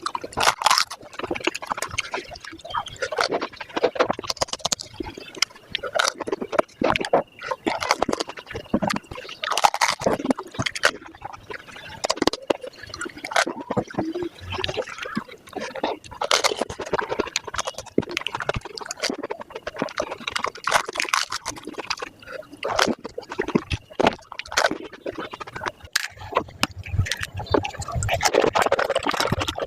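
Panipuri eaten fast and sped up: a dense run of crisp puri shells crunching, mixed with wet slurping of the spiced water.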